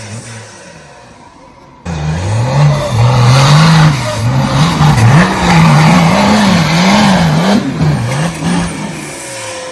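Off-road vehicle engine revving hard under load. It comes in suddenly about two seconds in, and its pitch rises and falls again and again as the throttle is worked, then eases near the end.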